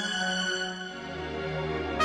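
Slow instrumental background music with long held notes; a low bass note comes in about halfway through.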